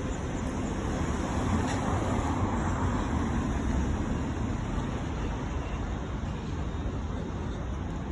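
City street traffic noise: a steady rush of road vehicles that swells for a few seconds in the middle and then eases off.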